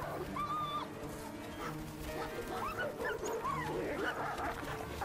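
Gray wolves fighting, with repeated high yelps and whines that rise and fall in pitch, several short cries in a row.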